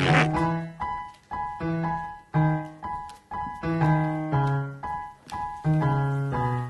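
Piano music: a melody of struck notes and chords, about two a second, each ringing briefly and fading.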